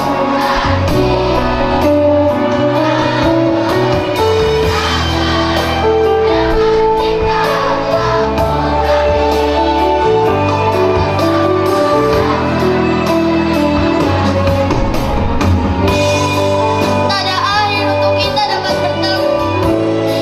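Children's choir singing over instrumental accompaniment, with long held notes and a steady bass.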